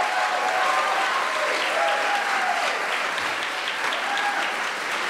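Theatre audience applauding at the end of a song, with a few voices calling out over the clapping.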